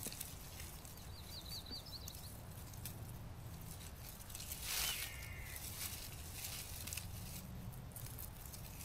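Faint outdoor ambience: wind rumbling low on the microphone, with a quick run of short high chirps about a second in and a brief louder rustle a little past the middle.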